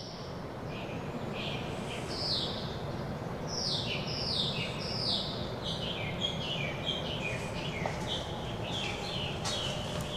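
A songbird singing a run of repeated down-slurred whistled notes, spaced out at first and then quicker and shorter in the second half, over a steady background hiss.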